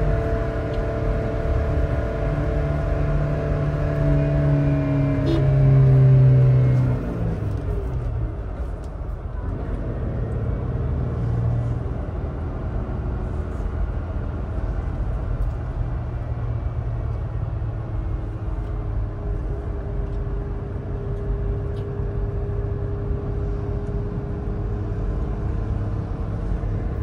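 Toyota Land Cruiser 70 series pickup's V6 engine heard from inside the cab while driving, pulling harder and loudest about six seconds in. The engine note then falls away about seven seconds in, and it settles into steady running with road noise.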